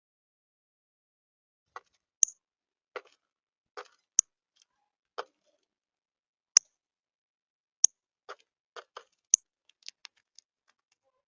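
Birds feeding at a bird feeder: a few sharp beak taps or pecks on the feeder, mixed with softer scratchy rustles of feet and seed, at irregular intervals with silence in between.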